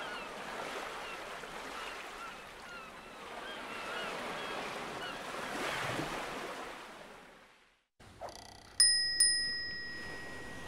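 Outdoor ambience with birds chirping in short repeated calls, fading out after about seven seconds. After a moment of silence comes a bright two-strike bell chime, the strikes about half a second apart, ringing on to the end. This is the loudest sound.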